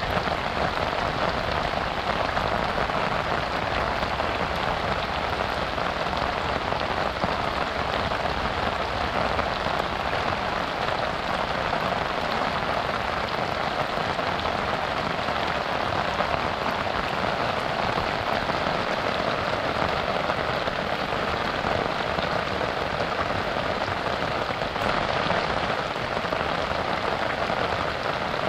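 Heavy rain falling steadily on a river, an even hiss with no breaks.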